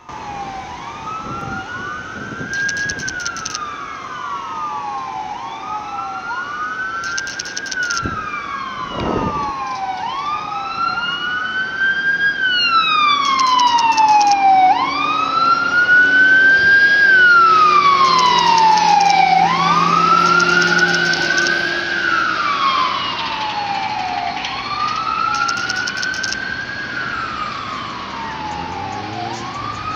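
Ambulance siren on a slow wail, its pitch rising and falling about every four seconds. It grows louder as the ambulance comes by, loudest around the middle, then eases off as it moves away.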